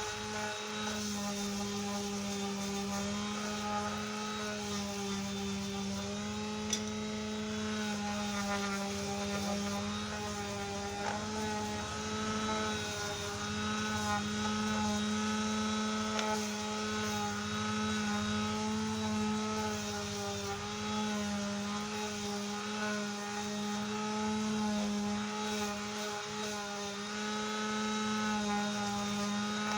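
Electric sanding tool running steadily with the finest grit, smoothing small wooden cutouts: a motor hum held at one pitch that dips and wavers a little as the wood is pressed against it.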